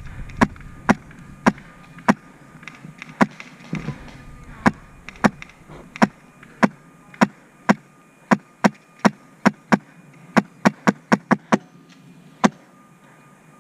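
Airsoft gun firing single shots, about two dozen sharp cracks, spaced out at first and coming faster, about three a second, near the end before they stop.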